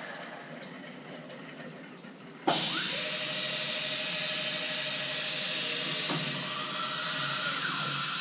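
CNC milling machine at work during a facing operation: quieter machine running at first, then about two and a half seconds in a loud, steady hiss starts suddenly and holds, with a faint steady tone beneath it.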